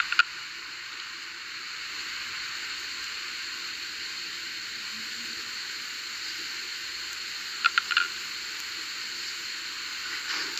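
Steady hiss of background noise with no speech, broken by two small clusters of short clicks: one right at the start and one about eight seconds in.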